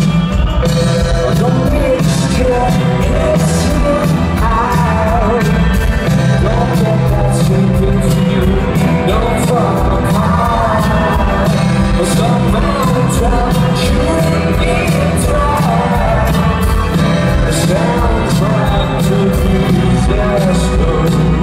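Live rock band playing a song, loud and bass-heavy as heard from the audience. Steady drums and a heavy bass sit under a wavering melodic line.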